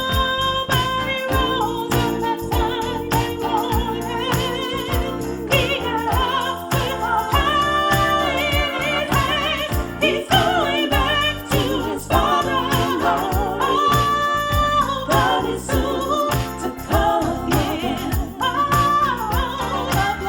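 Music: a church song with a singing voice, its held notes wavering, over a steady beat.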